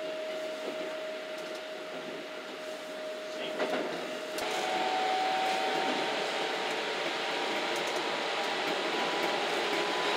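Keikyu electric train running at speed, heard from inside the driver's cab: a steady rush of wheels on rail with a thin whine over it. About four seconds in the running noise gets louder and the whine steps up in pitch.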